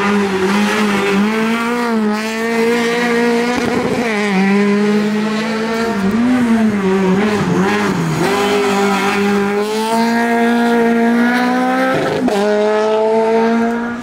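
Rally cars driven hard through a hairpin, one after another, with an Opel Kadett and then a Peugeot 208 among them. The engine note drops and rises several times as the drivers lift off and power out of the corner, then climbs steadily at full throttle near the end.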